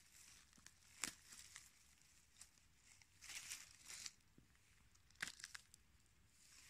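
Faint rustling and crackling of dry forest undergrowth and leaf litter as a hand reaches in and picks a mushroom. It comes in short scratchy bursts: about a second in, around three to four seconds in, and again near five seconds.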